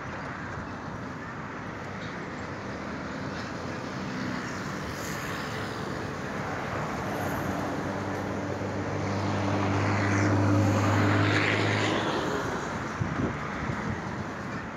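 Freight train of boxcars rolling through a curve, with a steady rumble of wheels on rails. A low engine drone builds up, is loudest about ten seconds in, and cuts off about two seconds later, followed by a few light knocks.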